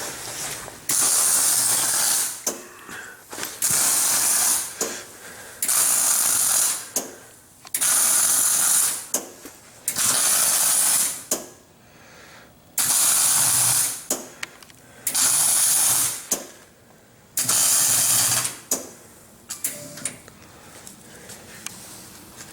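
Electric arc welding on a steel trailer: eight short welds of about a second and a half each, each a steady crackling hiss that stops sharply, with brief pauses between them.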